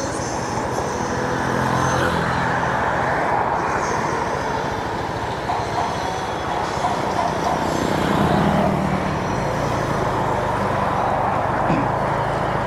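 Roadside traffic: motorbike engines running steadily amid passing road noise, the low engine hum swelling about two-thirds of the way through.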